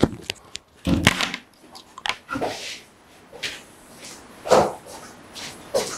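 A person getting up from a chair and moving off across a small room: irregular knocks, clicks and rustling.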